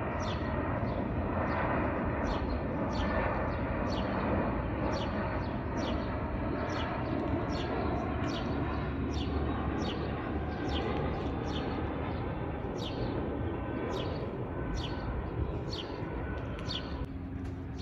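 Jet airliner passing low overhead on approach, a steady broad rumble of its engines that slowly fades and drops away near the end. Over it a small bird gives quick, downward-sweeping chirps about twice a second.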